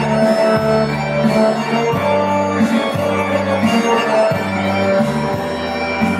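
Traditional Bosnian folk dance music playing loudly, with a bass line that moves to a new note about once a second.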